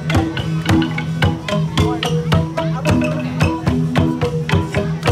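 Central Highlands gong ensemble (cồng chiêng) playing a steady, driving rhythm. Several gongs are struck about four times a second, and their pitched tones ring on and overlap between strokes.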